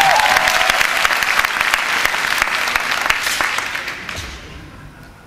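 Audience applauding, loud at first and dying away about four seconds in.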